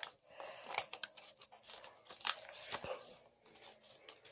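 Paper being handled, rustling and crinkling in irregular bursts with scattered small clicks.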